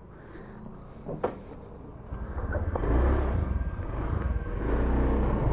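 A sharp click about a second in, then a Honda Beat automatic scooter pulling away and riding. Its low rumble grows louder from about two seconds in and holds.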